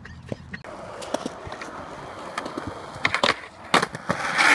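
Skateboard wheels rolling on smooth concrete, with a few sharp clacks of the board, the clearest a little after three seconds and near four seconds.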